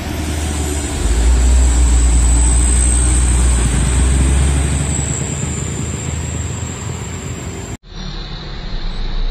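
Diesel engine of a loaded Mitsubishi Canter light truck running under load as it passes close by, loudest for a few seconds and then easing off. Near the end the sound cuts out for an instant and picks up again.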